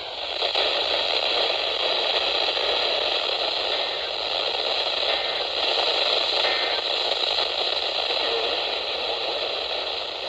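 Weather radio receiver hissing with steady static on a weak, interference-ridden NOAA Weather Radio signal, the broadcast almost lost in the noise.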